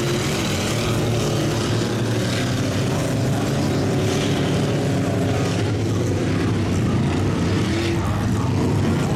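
Small Jeep's engine running hard under load as it churns through deep mud and water, the revs rising and falling a little, with a steady wash of mud and water noise from the tyres.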